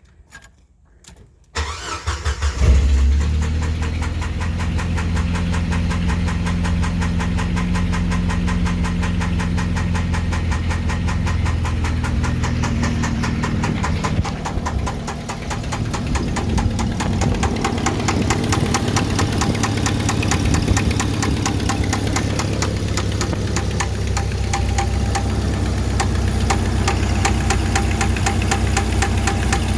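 1995 Jeep Wrangler YJ engine starting about two seconds in, then idling with a fast, even ticking knock; its level dips briefly about halfway through. The owner suspects an exhaust leak rather than a rod knock, since oil pressure and oil level are fine.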